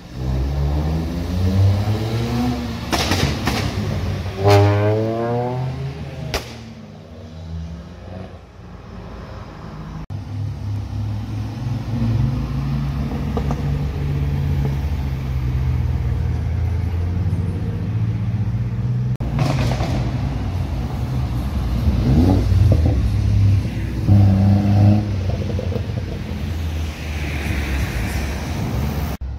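Cars driving past on a road with engines revving. A few seconds in, one engine climbs steeply in pitch as it accelerates hard; after that comes steadier engine and tyre noise from passing cars, with a few shorter rises.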